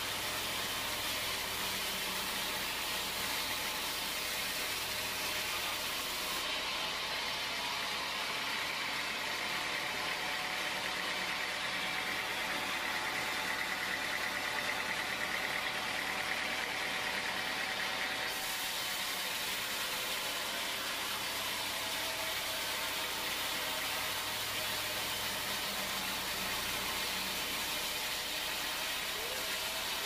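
Band sawmill running steadily, its blade sawing teak slabs into boards.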